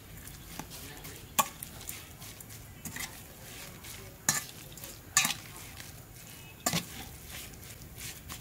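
A metal ladle stirs a minced pork mixture in a metal bowl, with several sharp clinks of the ladle against the bowl at irregular intervals.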